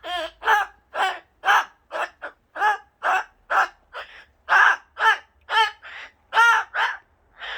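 Pet cockatoo calling over and over, short calls with a bending pitch at about two a second.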